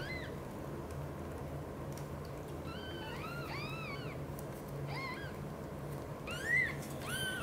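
Newborn kittens giving thin, high-pitched squeaking mews: a single one at the start, a quick run of several around the middle, then single ones, the loudest near the end. A steady low hum runs underneath.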